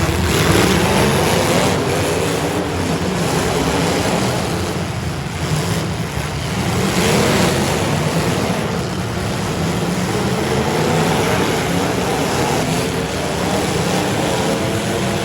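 Loud, continuous engine noise from demolition derby cars running and revving, with a low rumble and a wavering pitch.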